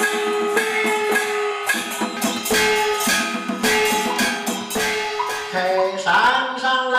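Traditional Chinese shadow-play percussion music: gong and cymbal strikes in a quick rhythm under a held melodic line. About five and a half seconds in, a higher, wavering melody takes over.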